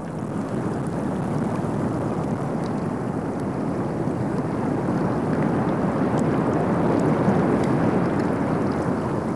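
Shallow incoming tide water washing in thin, foamy sheets over a sandy mudflat, with wind: a steady rush that builds slowly.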